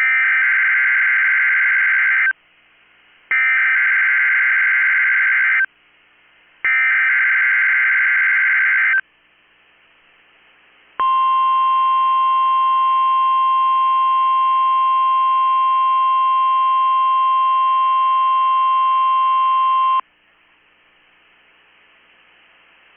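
NOAA Weather Radio Emergency Alert System test: three bursts of SAME digital header data, each a harsh electronic screech about two seconds long with short gaps between, then a single steady 1050 Hz warning alarm tone for about nine seconds, then faint radio hiss.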